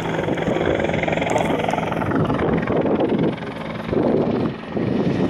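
Bell 412 twin-turbine helicopter hovering, its rotor and engines running steadily, with two brief dips in loudness in the second half.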